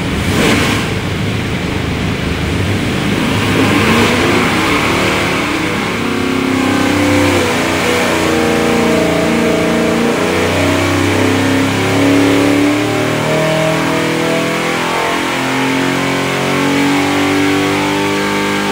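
Carbureted 582-cubic-inch big-block Chevy V8 running hard under load on an engine dynamometer, a loud full-throttle dyno pull.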